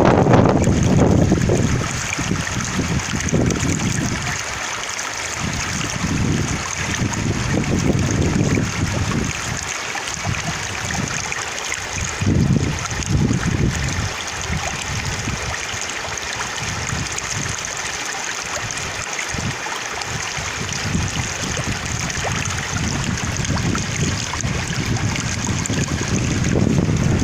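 Stream water flowing steadily, with gusts of winter wind buffeting the microphone in uneven low rumbles that come and go.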